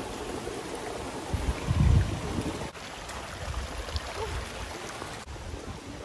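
Steady rush of a rocky mountain stream, with a few low rumbling bumps on the microphone, loudest about two seconds in.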